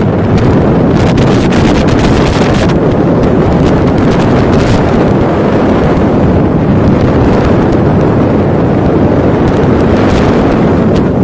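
Strong wind buffeting the phone's microphone on a bulk carrier in a storm, over the rush of heavy seas breaking along the hull. Harder crackling gusts come about a second in and again around four and a half seconds.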